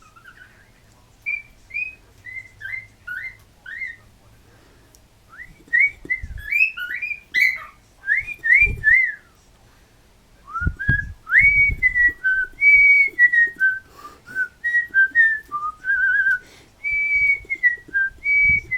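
Young cockatiel whistling phrases of short notes that glide up and down, in three runs with short pauses between them. A few dull low thuds sound underneath partway through.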